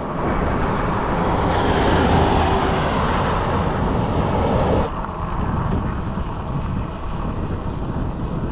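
Wind rushing over the action-camera microphone and road traffic going by on a main road. The louder, hissier noise cuts off abruptly about five seconds in, leaving a lower, steady wind rumble.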